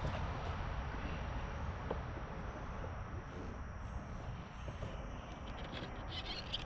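Outdoor ambience: a low, steady wind rumble on the microphone with faint insect chirring that grows stronger near the end, and a few light ticks.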